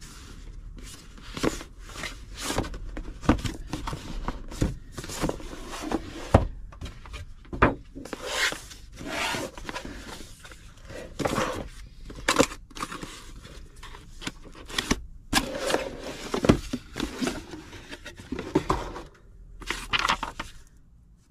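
Cardboard packaging being unpacked by hand: a run of irregular scraping, rubbing and papery rustling as a printed card sleeve comes off a white cardboard box and the box is opened, with paper manuals handled near the end.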